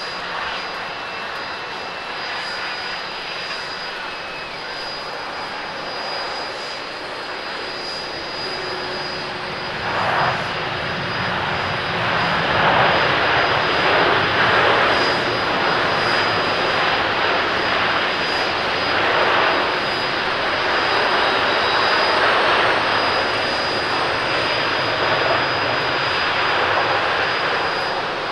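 Airbus A350-900 jet engines (Rolls-Royce Trent XWB) during a landing rollout on a wet runway. The engines run steadily at first; about ten seconds in they rise sharply to a loud rushing roar as reverse thrust is applied, hold for around ten seconds, then ease off as the aircraft slows.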